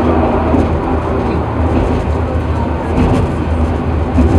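Penang Hill Railway funicular car running downhill: a steady, loud low rumble of the car's wheels on the rails, heard from inside the car.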